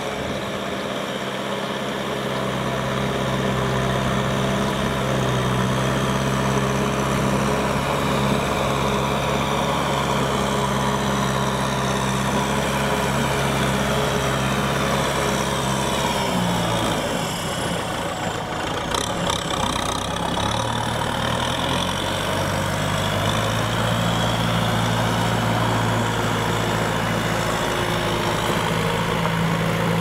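Kubota M6040SU tractor's diesel engine running steadily as the tractor ploughs a muddy rice paddy. Its note changes a little past halfway.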